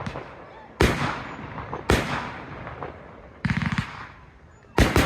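Display fireworks going off: two sharp bangs about a second apart, each trailing off, then a quick rattling string of small reports, and a heavier cluster of bursts near the end.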